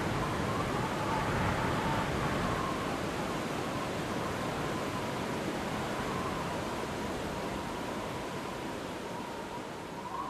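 Steady rushing ambient noise with a faint, wavering whistle-like tone running through it, growing a little quieter toward the end.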